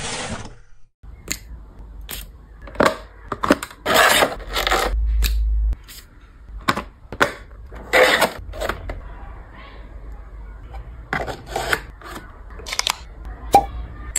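Close-miked handling of cosmetics packaging: a string of irregular sharp taps, clicks and scrapes as a drawer of a pink jewelry-box case, a cardboard box and clear plastic trays are opened and their contents lifted out.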